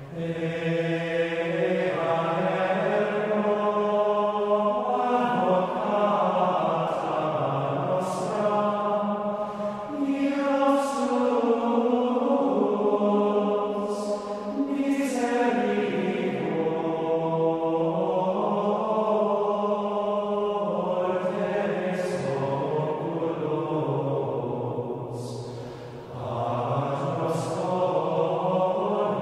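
Background music of choral chanting: several voices hold long notes that shift in pitch every few seconds, with a short pause between phrases near the end.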